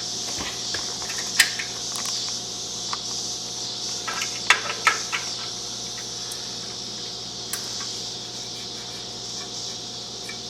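A few sharp metallic clinks and light knocks of hand tools and exhaust hardware, a small cluster of them about halfway through, over a steady hiss.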